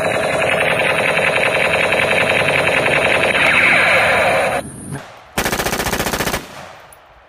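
Battery toy submachine gun's speaker playing a rapid electronic machine-gun sound effect, which stops after about four and a half seconds. About a second later comes a short burst of real automatic gunfire, loud and lasting about a second, that fades away.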